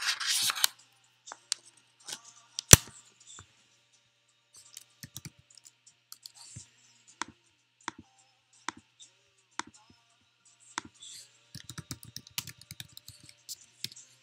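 Typing on a computer keyboard, heard as scattered single key clicks with one loud click about three seconds in and a quick run of keystrokes near the end. A short rustle comes right at the start.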